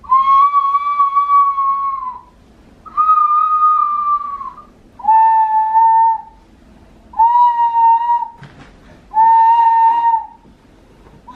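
A child blowing a small toy whistle: five long, steady blasts of about one and a half to two seconds each, with short gaps between them. The first two blasts are a little higher in pitch than the last three.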